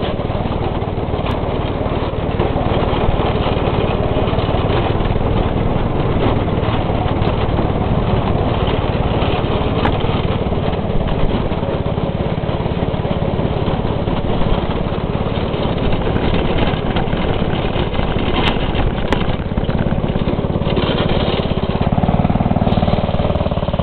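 Go-kart's small engine running under way as the kart is driven around; the engine note changes near the end.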